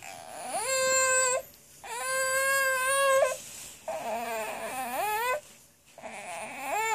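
Baby fussing: four drawn-out, high-pitched whiny cries, most held level for a second or so, the third lower and rising at its end.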